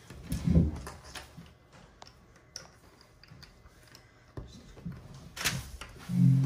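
Small plastic LEGO DOTS tiles and bricks clicking and tapping as they are picked out of a plastic tray and pressed together by hand: scattered single clicks with quiet in between. A short low hum near the end.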